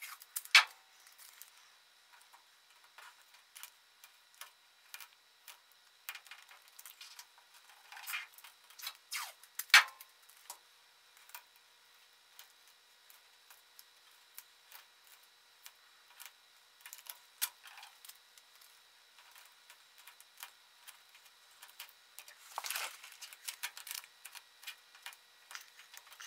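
Masking tape being pulled off the roll, torn and pressed by hand onto a car body seam: scattered light crackles and clicks, with two sharp snaps, one right at the start and one about ten seconds in, and a short rustle near the end.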